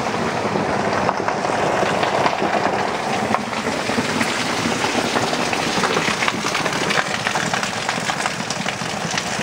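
Hail pelting down in a heavy downpour: a dense, steady clatter of countless small impacts over the hiss of rain.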